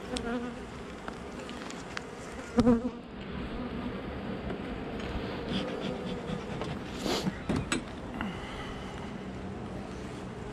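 Honeybees buzzing in a steady hum around an opened hive. A loud knock comes about two and a half seconds in, and a short hiss with a few clicks a little after the middle.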